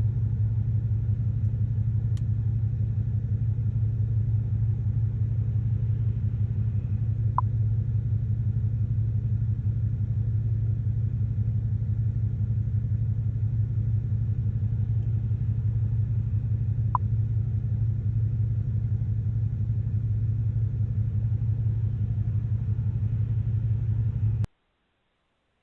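Steady low rumble of an idling vehicle engine, heard through a doorbell camera's microphone, with two faint ticks along the way; it cuts off abruptly near the end.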